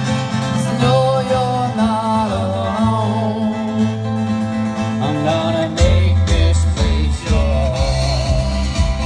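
Live country music: a singer's voice over guitar. About six seconds in, a deep bass line and drum beats come in.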